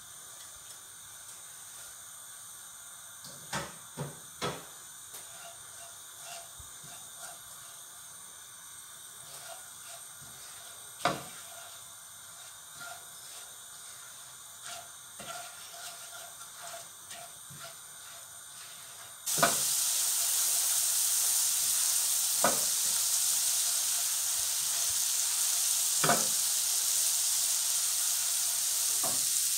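Silicone spatula knocking and scraping in a nonstick frying pan as ground spices and green chillies are stirred into oil. About two-thirds of the way in, a loud frying sizzle starts suddenly and carries on under a few more spatula knocks as the masala cooks.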